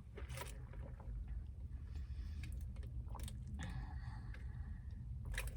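Quiet chewing of food, with a few faint clicks over a steady low rumble.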